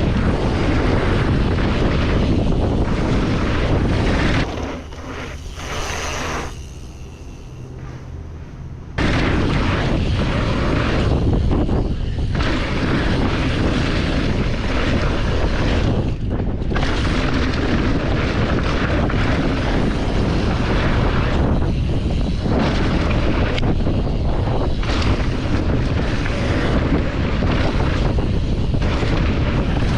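Loud, steady rumbling wind noise buffeting the microphone, easing off for a few seconds about five seconds in, then returning just as strong.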